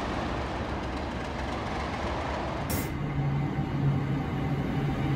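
Two English Electric Class 37 diesel locomotives running slowly, a steady rumble. About three seconds in, this gives way to a Class 325 electric multiple unit approaching with a steady low hum that grows louder.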